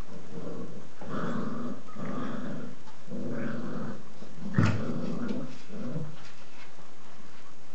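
Puppies growling: about five rough growls, each roughly a second long, with a sharp louder sound about four and a half seconds in.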